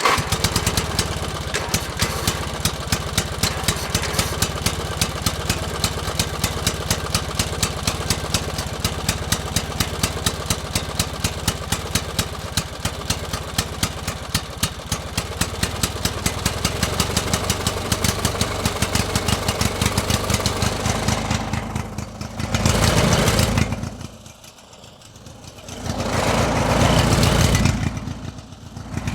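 Combustion engine running steadily at idle with an even, rapid pulsing. Near the end it is revved up twice, each time dropping back.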